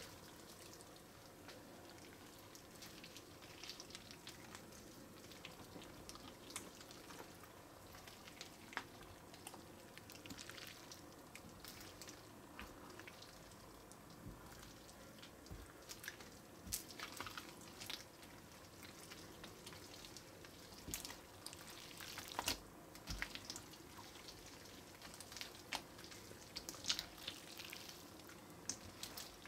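Faint wet squishing and crackling of clear water slime packed with Orbeez water beads as it is pressed, spread and stretched by hand. Irregular sticky pops and clicks come more often in the last several seconds.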